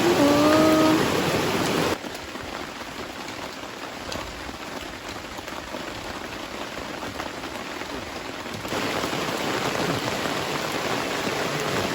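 Heavy rain falling steadily. It drops abruptly to a softer hiss about two seconds in and grows louder again near the end. A short pitched, voice-like sound is heard in the first second.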